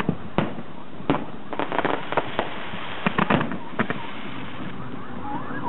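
Aerial fireworks going off: irregular sharp bangs and crackling pops, some in quick clusters, over steady background noise.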